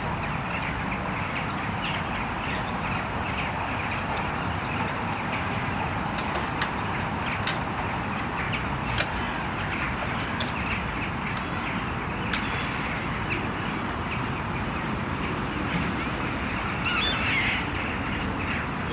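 Steady outdoor background noise with scattered short bird chirps, and a brief wavering bird call near the end.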